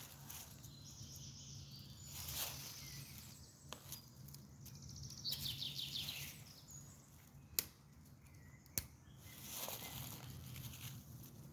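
Wild birds singing in short phrases of quick chirps and trills, with a few sharp single pops of a crackling wood fire. A steady low hum runs underneath.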